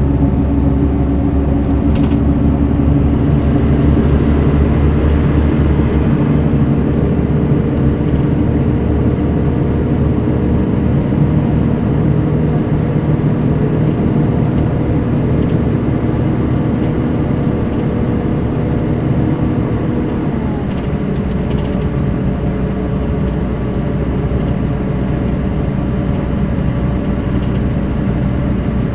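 Diesel engine of a Mercedes-Benz O500 RSD BlueTec5 coach running steadily, its note dropping slightly about twenty seconds in.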